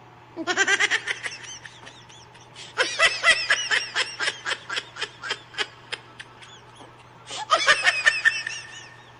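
High-pitched laughter in three bouts of quick repeated syllables, the longest in the middle, over a steady low hum.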